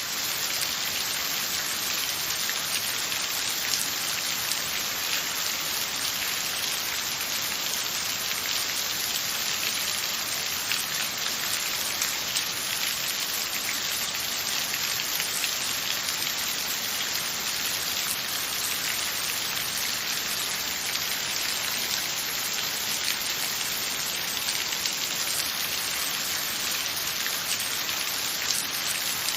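Steady rain falling, a constant even hiss of many drops with scattered individual drop taps.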